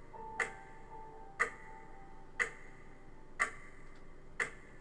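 Countdown clock ticking, one sharp tick a second, five ticks in all.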